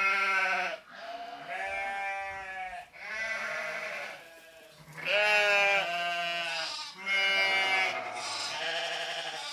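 Repeated bleating: about six quavering calls in a row, each around a second long, with short gaps between them.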